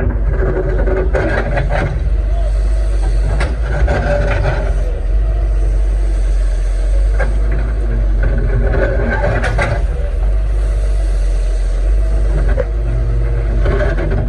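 Excavator's diesel engine running steadily under work, with scattered sharp knocks and clatter from the machine working.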